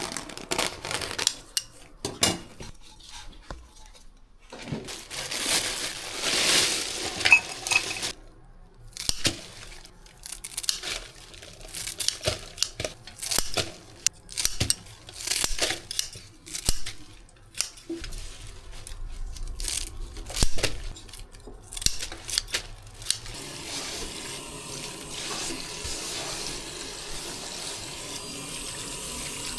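Kitchen clatter: scattered knocks and clinks of bowls and utensils. About three-quarters of the way through it gives way to a steady rush of water running from a tap.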